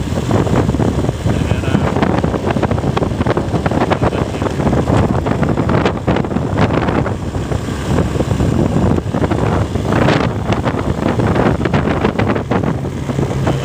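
Wind rushing over the microphone on a moving motorcycle, with the motorcycle's engine running steadily underneath.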